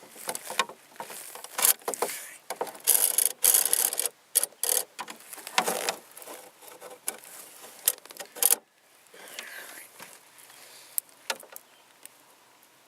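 Handling noise from gear being worked by hand: irregular rubbing and rustling with sharp clicks and knocks. It is busiest for the first eight or nine seconds, then turns fainter and sparser.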